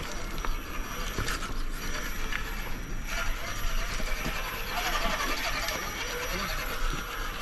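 Electric RC scale crawler truck grinding its way slowly over terrain: the motor and gear drivetrain whir and click steadily, with tires and chassis scraping on the ground.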